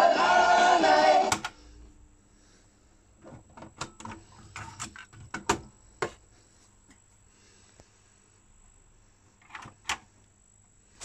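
Music played back from an AKAI CS-F110 cassette deck stops abruptly with a click of the stop key about a second in. Then a string of plastic clicks and clacks from the deck's eject mechanism and the cassette being pulled out, and another clack near the end as the cassette door is shut.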